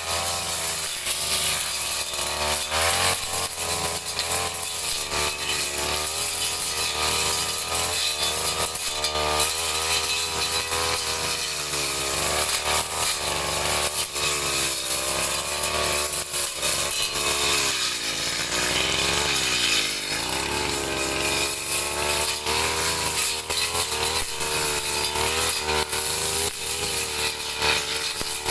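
Two-stroke brush cutter engine running hard while cutting grass, its revs wavering up and down, with a deeper dip and climb back up about two-thirds of the way through.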